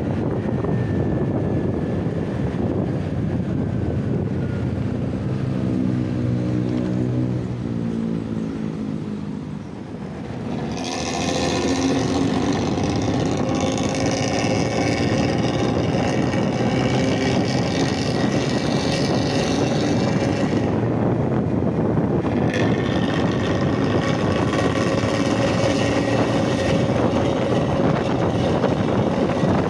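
Bus engine running through its 'ngorok' (snoring) exhaust. The note falls away and drops in level until about ten seconds in, then picks up into a loud, steady snoring drone that thins briefly a little past twenty seconds and comes back.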